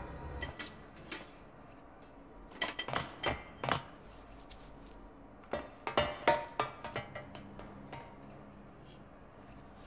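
Light metal clinks and rattles, in two quick flurries about two and a half seconds in and again around five and a half to seven seconds, with a few stray clicks between.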